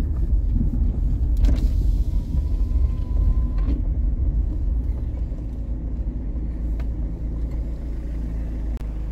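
Car engine and road rumble heard from inside the cabin as the car rolls slowly along, steady and low throughout.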